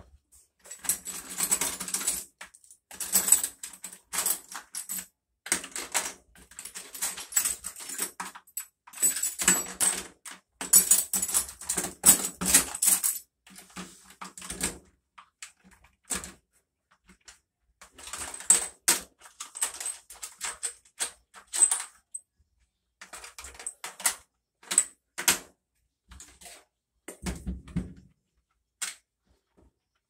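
Paper towels rustling and rubbing along washer suspension rods, with the metal rods clicking and rattling against each other and the cardboard tray in irregular bursts separated by short pauses.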